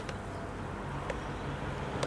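Low steady hum of an idle welding machine between welds, with a single sharp click about a second in.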